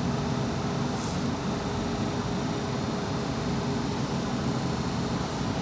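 Steady low background hum and rumble, like a workshop ventilation fan or distant machinery, with one faint constant tone running through it.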